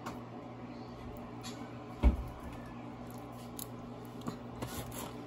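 A silicone spatula squishing and scraping as it spreads tomato sauce over a lasagna layer in a baking pan, over a steady low hum. There is one dull thump about two seconds in, and a few light clicks near the end.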